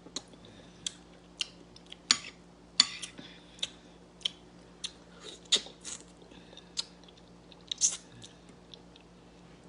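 A person chewing soft stewed food, a mushroom and fish, with irregular sharp wet mouth clicks and smacks.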